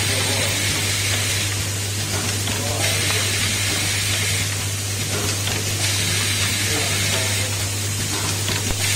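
Automatic bimetal contact riveting machine running: a steady low hum, with hissing bursts of compressed air from its pneumatic cylinders about every three seconds, each lasting a second or more.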